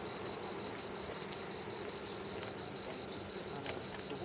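Insects chirping: an even, high pulsed trill of about six pulses a second, with a short higher buzz twice, over a steady low background noise.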